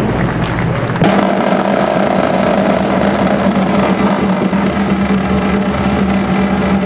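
Marching band holding a long, loud chord, the brass sustaining the notes. The sound changes abruptly about a second in.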